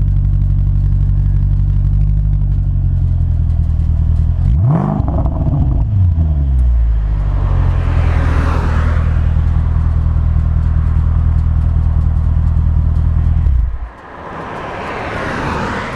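Jaguar XFR-S's supercharged V8 idling steadily, recorded close to the exhaust tip, with one brief rev about five seconds in. The engine cuts off suddenly near the end, and passing cars are heard about halfway through and again at the close.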